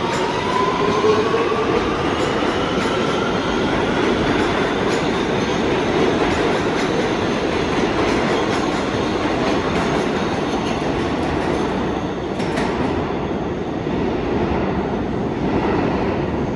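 New York City subway train accelerating: the motors give a whine that rises in pitch over the first few seconds and then levels off, under a steady rumble of wheels on rail with a few clicks as the cars go by.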